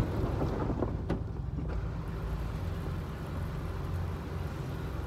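Automatic car wash running, heard from inside the car as a steady low rumble with a faint hiss of water spray against the body.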